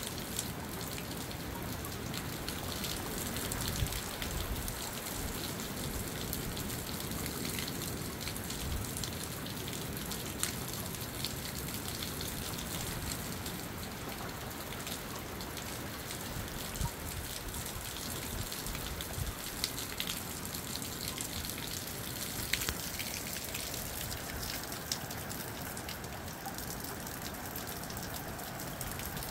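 Moderate rain falling steadily, with scattered sharp ticks of individual drops striking close by.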